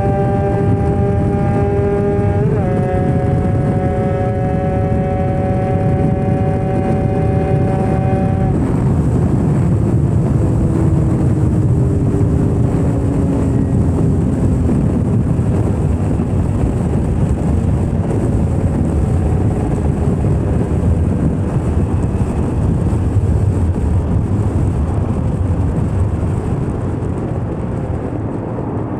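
Kawasaki 150RR two-stroke single-cylinder engine screaming at high revs near its top speed of about 183 km/h. The pitch climbs slowly, drops with an upshift about two and a half seconds in, then climbs again. About eight seconds in the throttle closes and the engine note gives way to a loud rush of wind over the microphone as the bike slows, with the engine winding down underneath.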